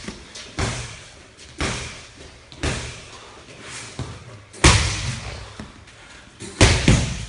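Punches and kicks landing on focus mitts during pad work: about seven sharp slaps, roughly one a second, each with a short echo, the last two the loudest.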